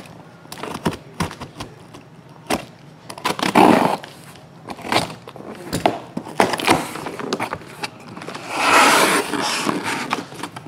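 A taped cardboard shipping case being cut and opened: scattered scrapes and clicks along the packing tape, with a louder noisy rasp about three and a half seconds in and a longer, louder rustling tear near the end as the flaps come open.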